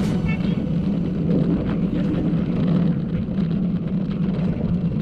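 Luge cart's wheels rolling down a concrete track, a steady rumble, with wind noise on the microphone from the cart's speed.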